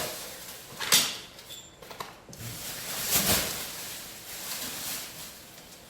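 Plastic wrapping rustling and crinkling as it is pulled off by hand, with louder rustles about a second in and about three seconds in.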